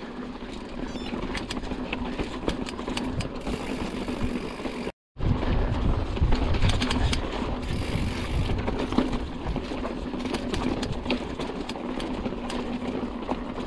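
Mountain bike riding a rough, rocky technical descent: tyres rolling over rock and loose stones and the bike rattling, with many sharp clicks and knocks over a steady low hum. The sound cuts out for a moment about five seconds in.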